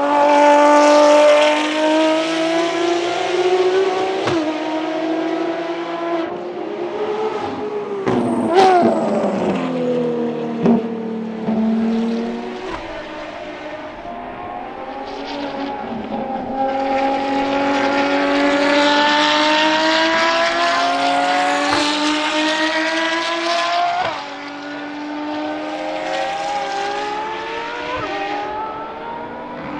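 Ferrari FXX K Evo track cars' V12 engines at high revs as they pass. The pitch drops in steps through downshifts around the middle, then climbs through a long run of acceleration and falls away near the end.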